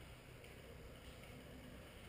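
Near silence: faint steady background noise with a low rumble.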